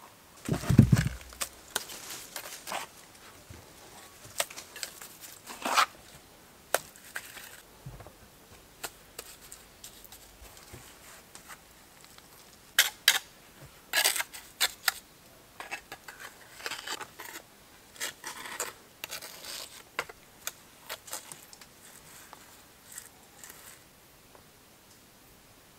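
Stones being laid into clay mortar on a stone stove: a heavy thud as a stone is set down about a second in, then irregular scraping, clicking and knocking of stone against stone and clay as they are pressed into place.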